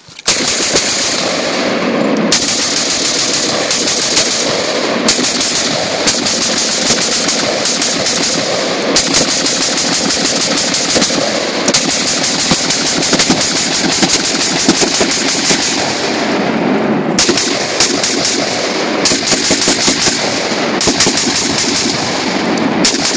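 Short-barrelled 5.56mm AR pistol (7.5-inch barrel) with a Noveske Flaming Pig flash hider firing long, rapid strings of shots from a 100-round drum. The shots come too fast to separate, with only a few brief pauses.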